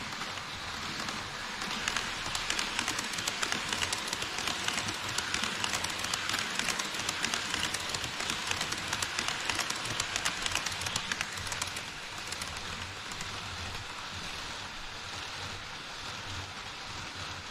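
HO-scale E5 series shinkansen model running past on KATO Unitrack, its metal wheels making a dense rattling clatter over the rail joints. It is loudest from about two to twelve seconds in, then eases off as the train moves away.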